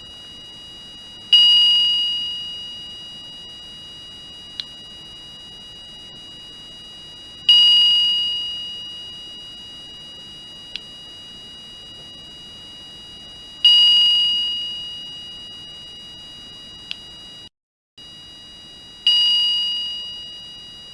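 Electronic chime from a 74HCU04-based chime circuit, sounding four times about six seconds apart: each note starts suddenly and fades away over about a second and a half, the fade shaped by a capacitor's discharge curve. A faint steady tone at the same pitch stays on between the notes, with a small click midway between each pair.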